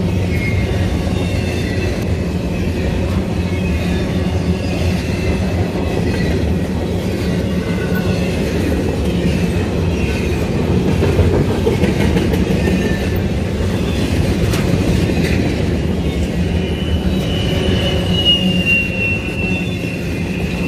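Intermodal double-stack well cars rolling past at track side: a steady rumble of wheels on rail, with thin high-pitched wheel squeals that come and go, loudest near the end.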